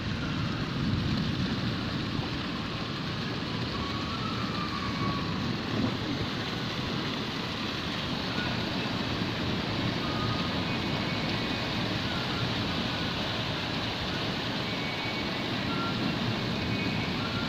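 Heavy rain pouring down steadily in strong wind, a continuous even hiss and patter.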